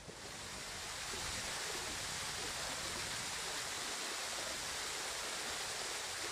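Water rushing and splashing off a turning water mill wheel and its chute into the mill race, swelling over the first second and then steady. No knocking is heard: the wheel, on its epoxy-repaired shaft, runs smoothly without striking the foundation.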